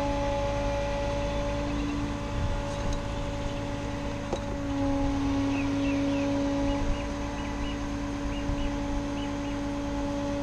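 Bucket truck's boom hydraulics running as the boom lifts the bucket: a steady hum of several held tones that grows louder for a couple of seconds in the middle. There is a short click about four seconds in.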